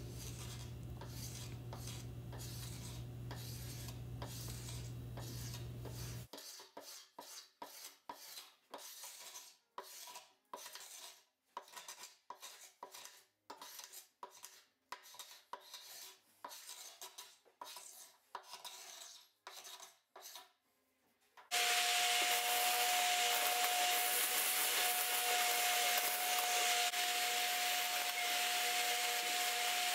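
Carbide scraper stripping paint and old varnish from a wood-veneer dresser top: a run of short rasping scrapes, about one or two strokes a second. About two-thirds of the way in, a louder steady whirring noise with a constant tone takes over.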